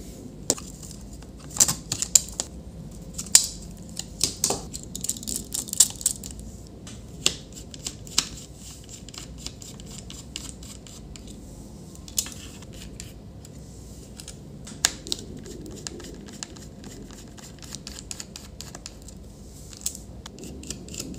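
Small screwdriver working screws out of an HP ProBook 440 G4's bottom case: irregular sharp clicks and scraping of the tool tip and screws against the case, busiest in the first six seconds and sparser after.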